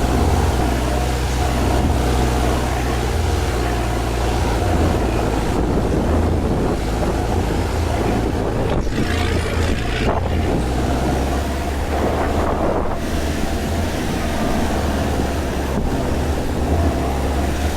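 Off-road 4x4 driving over sand dunes: a steady low engine rumble under a broad rush of wind buffeting the microphone.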